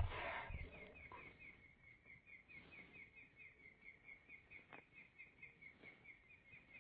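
Faint outdoor ambience with a fast, even, high chirping that repeats about five times a second, over a soft noise bed. A short low thump comes right at the start.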